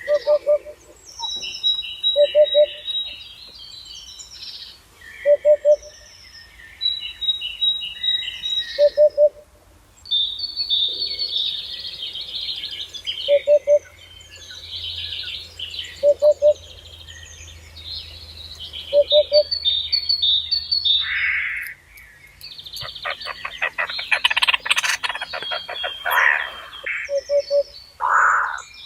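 Several birds singing together: high chirps and trilled phrases overlap, and a low short call repeats about every three seconds. A fast rattling trill comes in over the chorus about two-thirds of the way through.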